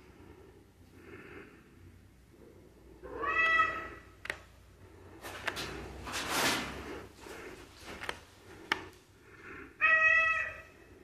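Domestic cat meowing twice, once a few seconds in and again near the end, each a short pitched call. In between come a few sharp clicks and a short rustling noise.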